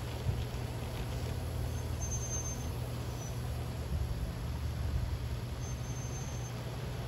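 Large-scale garden railway trains running on outdoor track: a steady low rumble of motors and wheels, with a couple of brief faint high squeaks.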